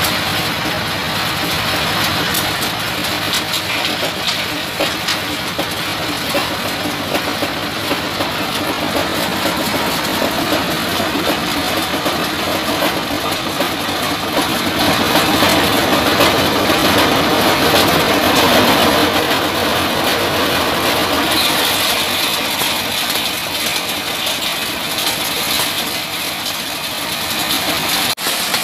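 Diesel engine driving an organic-fertilizer grinding machine, running steadily under load with a continuous noisy rush, a little louder for a few seconds past the middle.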